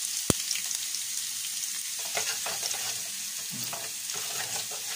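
Chopped ginger, garlic, green chillies and onion sizzling in hot coconut oil in a frying pan, with one sharp click about a third of a second in. From about two seconds in, a wooden spatula stirs and scrapes them around the pan.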